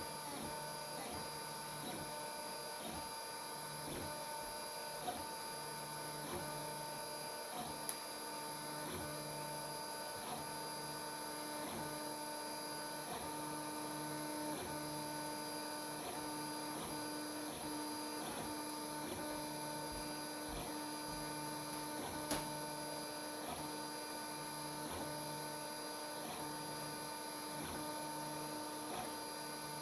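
Geeetech A10 FDM 3D printer running a print: a steady mechanical whine of its stepper motors and fans, with a low tone that keeps cutting in and out as the print head moves. Two sharp clicks stand out, about 8 and 22 seconds in.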